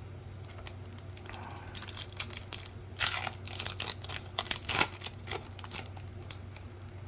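Plastic wrapper of a hockey card pack being crinkled and torn open, a run of crackling rustles that is loudest in the middle and dies away before the end.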